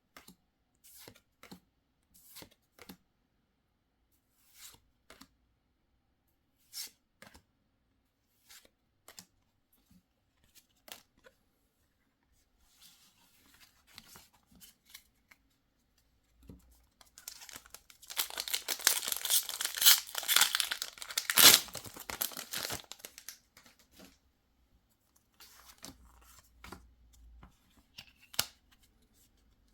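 Pokémon TCG booster pack wrapper torn open, a crinkly tearing run of about five seconds past the middle that peaks with one sharp rip. Before and after it come scattered light taps and clicks of cards and packaging being handled.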